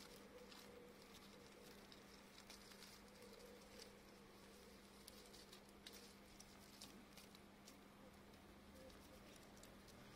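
Near silence with faint, scattered dry rustles and ticks, as a plant stem is trailed and flicked over dry grass, straw and dirt, over a faint steady low hum.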